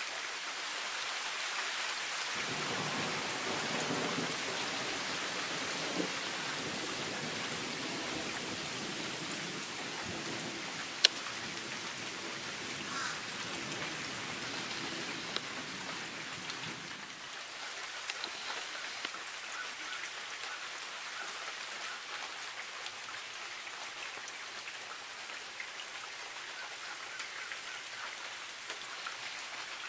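Steady rain falling on the ground and foliage. A low rumble runs under it for the first half, and a single sharp click stands out about eleven seconds in.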